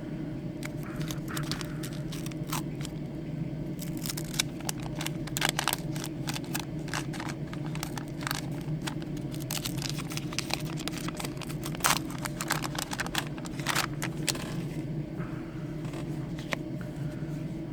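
Wax-paper wrapper of a resealed trading card pack being torn open and crumpled, a run of irregular crinkles and crackles with a few sharper snaps, over a steady low hum.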